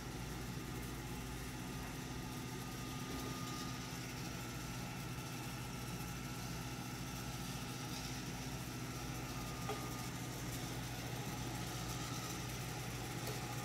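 Imextech electric coffee roaster running its cooling cycle: the cooling fan and turning cooling tray make a steady, even mechanical hum as the freshly roasted beans cool.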